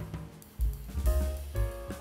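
Background music with a drum-kit beat: regular bass-drum pulses under pitched instrument lines.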